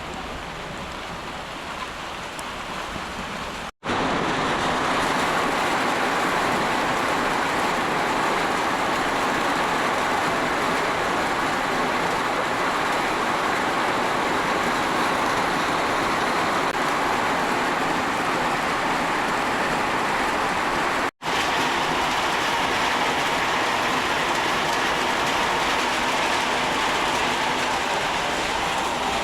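Steady, heavy rainfall, a dense continuous hiss that grows louder after it cuts out for an instant about four seconds in, and drops out briefly once more about twenty-one seconds in.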